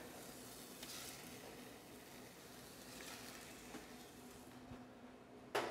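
Quiet kitchen with a faint steady hiss and low hum, a few soft knocks, then a sudden clatter near the end.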